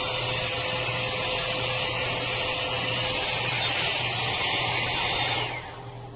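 Umeely 4-in-1 hot air brush (blow-dryer brush) running with a steady rush of air over a low motor hum, cutting off about five and a half seconds in.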